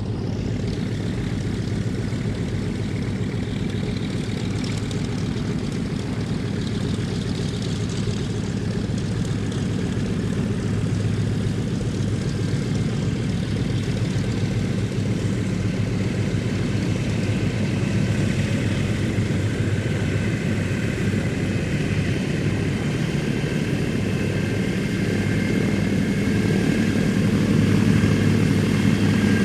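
1945 Douglas DC-3's twin radial piston engines and propellers running at low power as the aircraft taxis: a steady, deep engine drone that grows somewhat louder toward the end.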